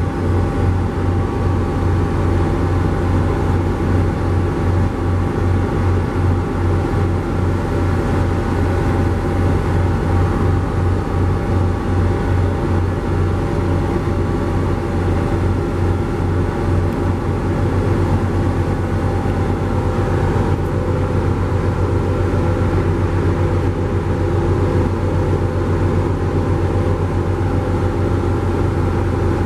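Commuter train's diesel locomotive idling, a steady loud drone with a low throb about three times a second that evens out into a smoother hum about seventeen seconds in.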